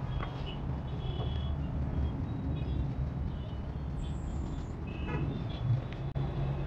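Road traffic noise: a steady low rumble of passing vehicles, with a brief high squeal about four seconds in.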